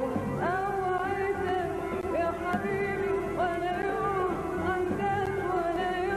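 A woman singing an Arabic song in ornamented phrases that glide and bend in pitch, accompanied by an orchestra.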